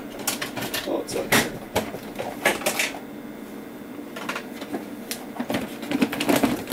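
Someone rummaging through stored items to find a small part: irregular clatter and knocks of objects being handled and moved, in clusters with short pauses between.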